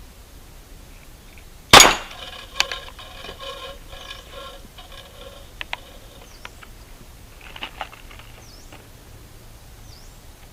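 An alcohol-fuelled PVC toy combustion gun firing once, a single loud crack about two seconds in, followed by about three seconds of metallic ringing. A few small clicks of the gun being handled and reloaded come later, with faint bird chirps throughout.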